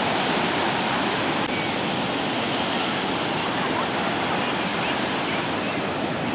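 Ocean waves breaking and washing on the shore in a steady, continuous surf, with a few faint short high chirps over it.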